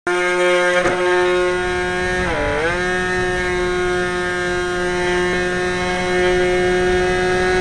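HobbyZone Aerobird RC plane's electric motor and propeller whining at full power, picked up close by a camera mounted in the plane. It is a steady high tone that dips in pitch and recovers about two and a half seconds in.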